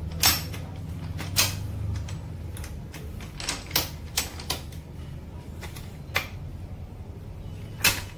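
Royal Enfield Bullet gearbox, open on the bench, being worked by hand from fifth gear back to neutral: a series of sharp, irregularly spaced metallic clicks as the selector and gears shift and engage, over a low steady hum.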